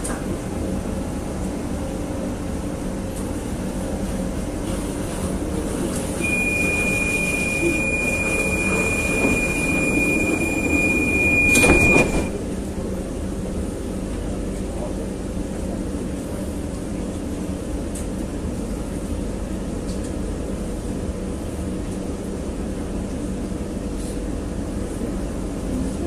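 CAF metro train on Istanbul's M4 line with a steady low rumble throughout. About six seconds in, a single steady high beep starts and holds for about six seconds, then stops with a sharp thud, the pattern of a door-closing warning followed by the doors shutting.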